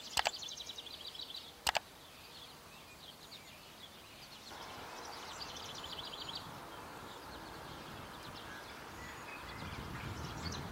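Outdoor rural ambience with small birds chirping in quick high runs. Two sharp clicks come near the start, the second about a second and a half after the first, and the background hiss gets louder about halfway through.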